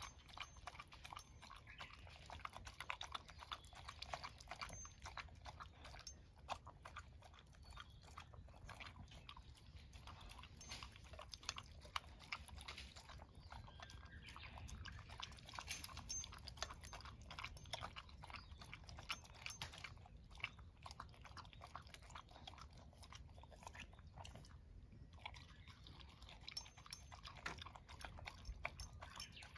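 Dog eating shredded vegetables from a bowl: quiet, steady crunchy chewing with many small clicks, pausing briefly a few seconds before the end.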